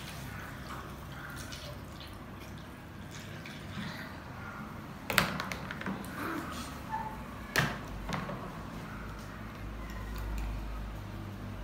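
Water trickling and dripping through a plastic funnel into a plastic water bottle, then two sharp plastic clacks about two and a half seconds apart as the measuring jug and the funnel are put down.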